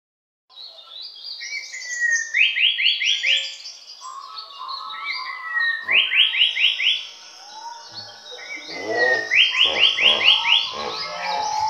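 A wild soundscape: a bird repeats its call, a falling whistle followed by a quick run of about five notes, about every three and a half seconds. Frogs croak underneath from about eight seconds in. It starts suddenly about half a second in.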